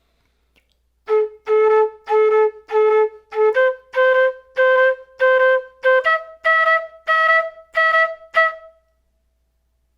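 Quena flute playing a short ear-training phrase: detached notes at about two a second, repeated several times on one pitch and then stepping up to a second and a third, higher pitch.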